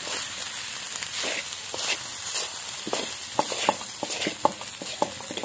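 Fried rice sizzling in a steel wok as it is stirred with a metal spatula. The spatula scrapes and taps against the pan repeatedly, most often in the second half.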